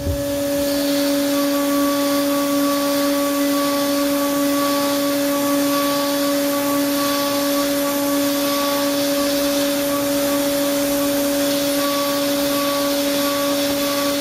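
CNC milling spindle turning at 17,000 rpm, with an ISCAR Chatter Free D4 end mill cutting C45 steel 9.8 mm deep. It makes a steady pitched whine with a second note above it, a fainter higher note that comes and goes, and a steady hiss.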